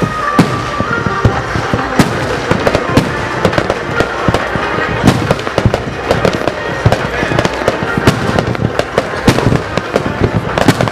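Aerial fireworks bursting in rapid, dense succession: many sharp bangs and crackles overlapping one another.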